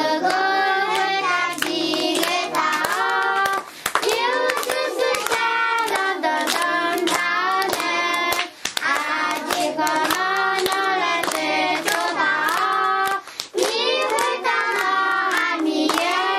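A group of young children singing a song in Akha, with hand clapping all the way through. The singing breaks briefly between lines about every four to five seconds.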